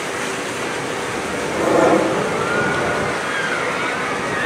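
Canoe paddles splashing and churning the river water, a steady wash of noise that swells briefly about two seconds in, with a thin whistling tone wavering up and down in the second half.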